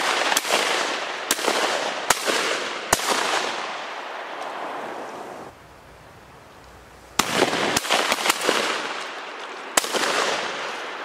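Shotgun volleys from several hunters at wood ducks: two rapid strings of about five or six shots each, the reports ringing out in a long fading echo after each string.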